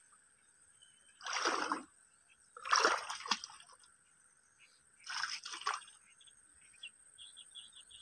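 Legs wading through shin-deep water: three sloshing splashes, a second or two apart, as a person steps forward.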